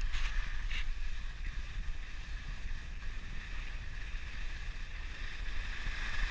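Skis sliding and scraping on packed snow with a steady hiss, under a low rumble of wind buffeting the camera's microphone. There are two brief sharper scrapes in the first second, and the hiss swells near the end.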